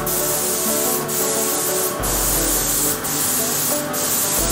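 Gravity-feed spray gun hissing steadily as it sprays primer onto fibreglass, with short dips about once a second. Background music plays underneath.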